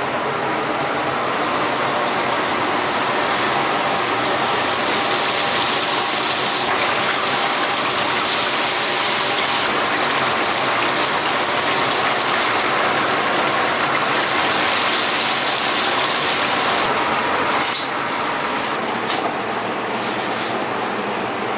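Chicken deep-frying in hot oil, a dense, steady sizzle that eases slightly near the end, with a few faint clicks after it.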